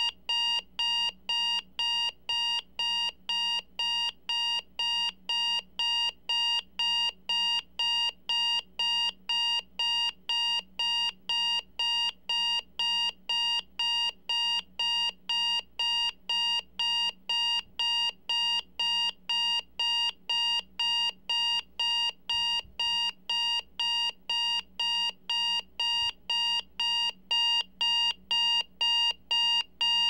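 Digital alarm clock buzzer going off: short, high-pitched electronic beeps repeating steadily at about two a second without a pause.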